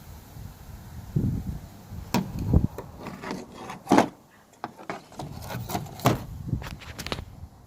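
Distributor parts and tools being handled by hand: an irregular run of sharp clicks and knocks, with a couple of louder knocks in the middle.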